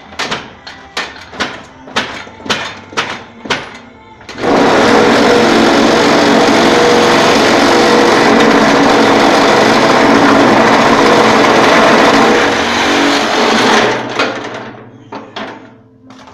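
Arbolite block-making machine at work: a run of sharp knocks, about three a second, for the first four seconds, then the machine running with a loud, steady rattling noise for about nine seconds, which dies away near the end with a few more knocks.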